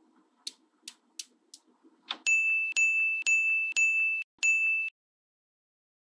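Small magnetic balls clicking together four times as they snap into place. Then five loud chime tones of one steady pitch ring in a row, each about half a second long.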